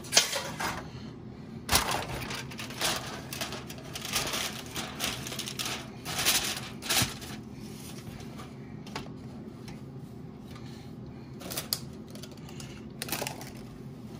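Aluminium foil crinkling and rustling in a string of short bursts as it is pressed over and handled around a baking dish, over a steady low hum.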